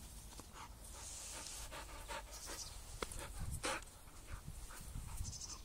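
A young Entlebucher Mountain Dog panting softly close by: a quick run of short, quiet breaths, out of breath from play.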